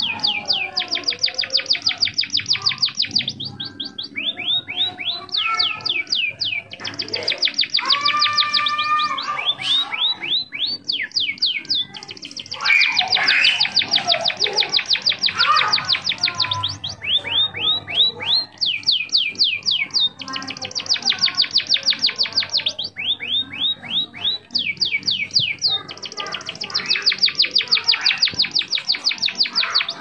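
Songbird singing a loud canary-style song: long rapid trills of about ten quick down-slurred notes a second, in phrases of a few seconds with short breaks, switching between trill types. A short steady whistled note with overtones sounds about eight seconds in.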